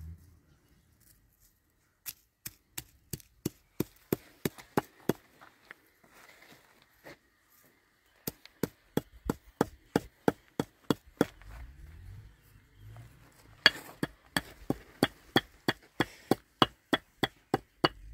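Chopping: three runs of sharp, evenly paced strikes, about two or three a second, with short pauses between the runs.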